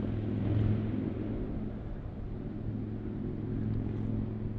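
Steady, low engine drone from a distant motor, holding one even pitch.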